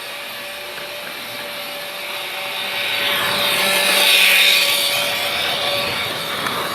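Freight train rolling along the rails, its wheel and rail noise swelling to a peak about four seconds in and then easing off, with a thin steady whine underneath.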